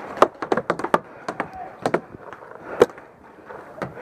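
Paintball fire: a rapid string of sharp cracks in the first second, then a few scattered single cracks.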